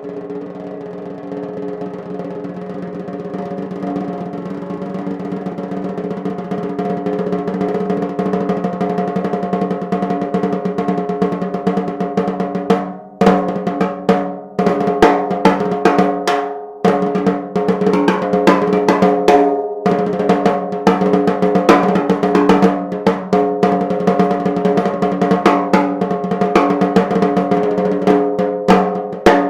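DW Design Series 14x6.5 nickel-over-brass snare drum played with no muffling. A roll swells steadily louder for about thirteen seconds, then breaks into quick strokes and fills with a few short pauses. The drum's overtones ring throughout.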